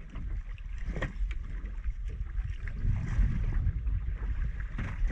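Wind buffeting the microphone on a small drifting fishing boat: a steady low rumble, with a few faint knocks about a second in and near the end.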